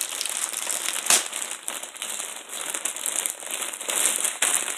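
Packaging of a mailed parcel crinkling and rustling as it is opened and handled, with one sharper crackle about a second in.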